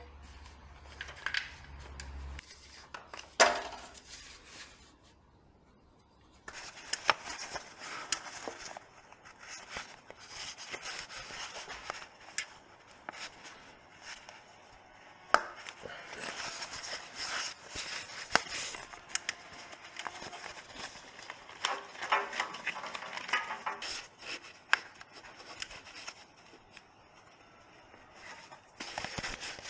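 Hand work on engine parts: scattered clicks and knocks of metal parts and tools, with stretches of rubbing and rustling between them. A low hum stops about two seconds in.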